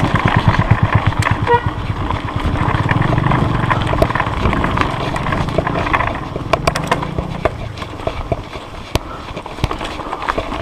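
SpeedOne Torpedo rear hub (8 pawls, 96 points of engagement) buzzing as a mountain bike coasts on a trail, with scattered clicks and knocks from the bike over rough ground. The buzz is loudest in the first half and fades off after about six seconds.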